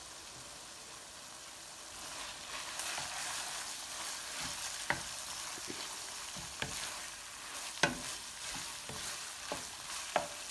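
Chopped tripe, liver and meat for dulet sizzling as they fry in a pan while being stirred, with a spoon knocking against the pan several times. The sizzle grows louder about two seconds in.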